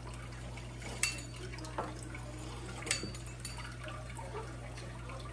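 A steady trickle of water and a low hum from an aquarium's filter, with three short clicks of a kitchen utensil against the counter and a baking tray, about one, two and three seconds in.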